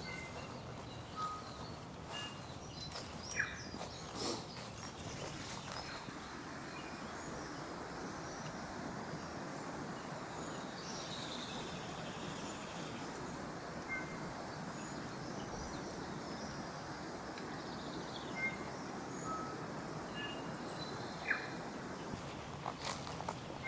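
Scattered short bird chirps and calls over a steady rushing background. A few footsteps on the track sound in the first few seconds.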